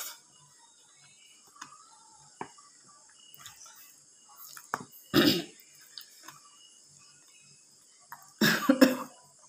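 A woman eating curry and rice with her fingers: small scattered mouth and finger sounds, with two short coughs, one about five seconds in and a longer one near the end.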